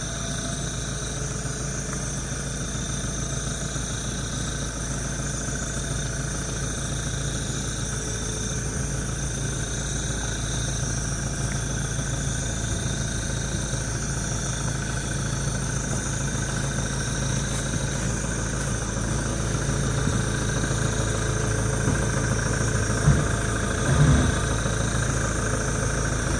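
Engine idling steadily, slowly getting a little louder, with two short knocks near the end.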